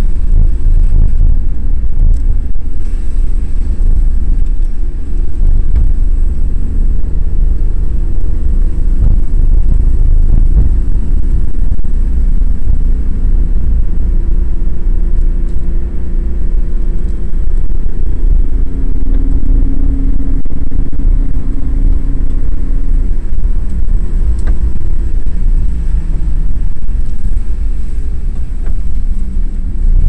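Car driving on a narrow country road, heard from inside the cabin: a steady low rumble of engine and tyres on the road surface, with an engine note that drifts up and down as the speed changes.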